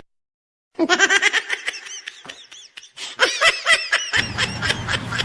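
Person laughing in rapid, high-pitched bursts, starting about a second in after a moment of total silence; a low background hum comes in near the end.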